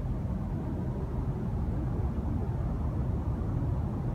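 Steady low outdoor rumble with no distinct events, the kind of low noise an open-air microphone picks up.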